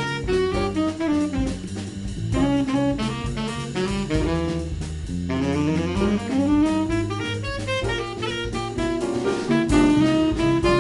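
Live jazz quartet playing: a saxophone plays quick running lines with several upward slides over drums, double bass and piano.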